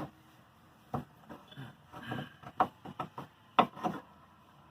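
Metal hand tools knocking and clinking against a car's suspension parts while prying at a stuck part: about eight irregular sharp knocks, starting about a second in.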